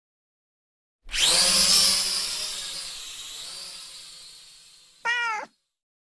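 Animated-logo sound effects: a hissing whoosh starts suddenly about a second in and fades away over some four seconds, then a single short cat meow about five seconds in.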